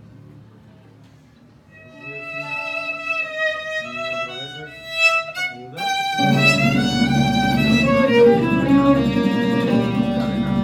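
Violin playing a slow solo line of long held notes that starts about two seconds in, then sweeps up in a fast run; at about six seconds acoustic guitar and upright double bass come in beneath it and the band plays on together.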